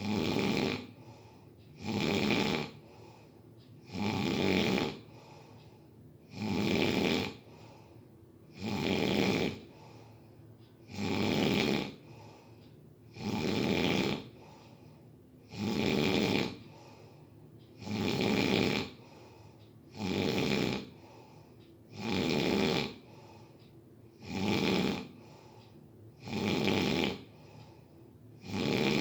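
Snoring: a short snore about every two seconds, in an even, unbroken rhythm.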